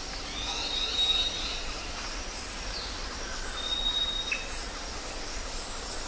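Birds calling: a high, steady whistled note about a second in and another around four seconds, with a short falling note just after, over a steady outdoor background hiss.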